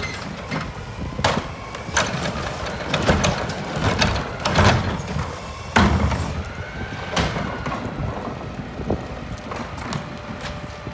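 Mack LEU McNeilus front-loader garbage truck idling while a plastic wheeled trash cart is emptied by hand into its front-mounted carry can, with repeated thuds and bangs of the cart against the metal can. The empty cart rolls away near the end.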